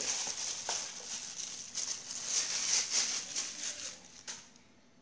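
Gloved hand mixing raw chicken drumsticks in marinade in a plastic basin: wet squishing and the plastic glove crinkling in uneven surges. It fades off about four seconds in, with a single sharp tick just after.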